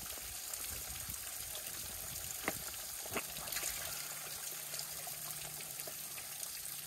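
Spring water trickling off a rock ledge into a soft plastic water bag being filled under the flow, with a couple of faint clicks about halfway through.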